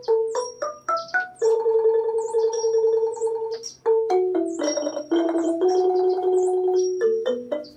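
Background music: a gentle melody of held notes with short rising runs between them.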